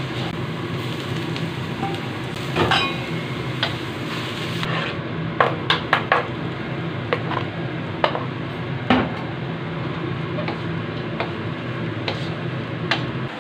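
A wooden spatula stirs scrambled eggs in a steel wok, scraping and knocking against the pan over a steady sizzle and low hum. A cluster of sharp taps comes about halfway through, as chopped lemon basil is scraped off a cutting board into the wok.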